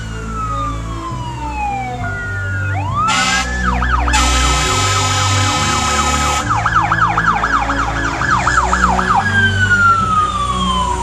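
Fire apparatus responding with sirens and air horns: a siren winds down in a long falling whine, then air horn blasts sound over a rising wail. About two-thirds through, the siren switches to a fast yelp, then winds down again near the end, over the steady rumble of the trucks' diesel engines.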